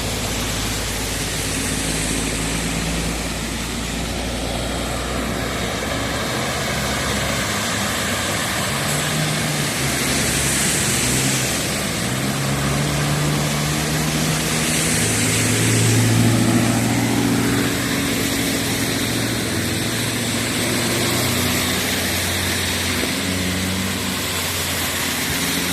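Motor vehicle engine running, its hum shifting in pitch and loudest a little past halfway, over a steady rush of noise.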